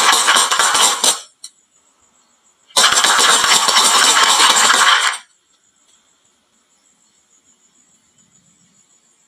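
Many marbles clattering down a wooden marble-run slope: a dense rattle that stops about a second in, a second burst of about two and a half seconds, then near quiet.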